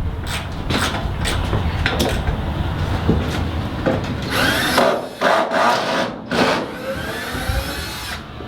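Wooden knocks and scraping, then a power drill whirring in several runs whose pitch slides up and down, backing screws out of the wooden blocking in a container floor.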